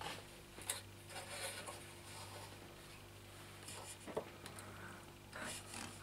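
Faint handling noises from a mini bike on its wooden lean rig: light rubbing and rustling with a few short clicks, the sharpest about four seconds in, as a hand takes hold of the bike. A steady low hum lies underneath.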